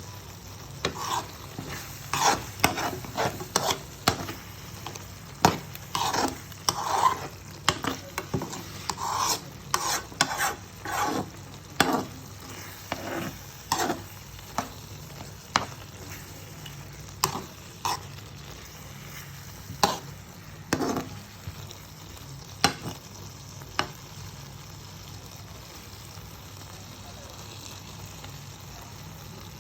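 Food sizzling in a pan while a cooking utensil stirs and scrapes against it, with sharp clinks and scrapes. They come thick and fast at first, thin out after about 18 seconds and stop at about 24 seconds, leaving only the steady sizzle.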